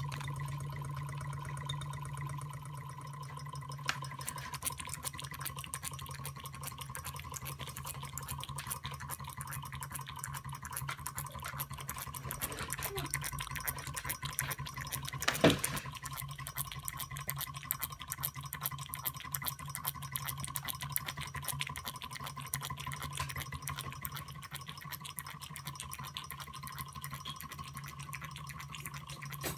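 Stirling-engine-driven model water fountain running: a rapid fine ticking from its pump mechanism with water trickling and dripping in the basin, over a steady hum. The ticking sets in about four seconds in, and a single sharp knock comes about halfway through.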